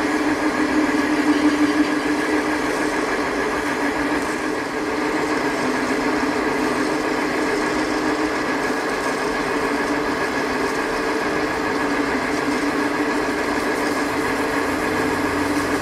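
Metal lathe running at steady speed with a 3-inch bar spinning in its chuck. It gives an even whine of motor and gears, with no change in speed.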